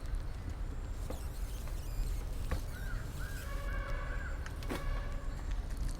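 Cardboard phone box being handled and worked open, with a steady handling rumble and a few sharp clicks and knocks. About halfway through comes a short run of three or four squeaky, call-like tones.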